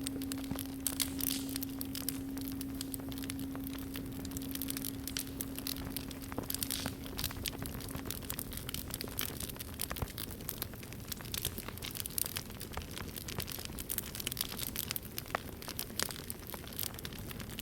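A singing bowl's low ringing tone dies away over the first nine seconds or so, with no new strike. Under it a wood campfire crackles and pops without let-up.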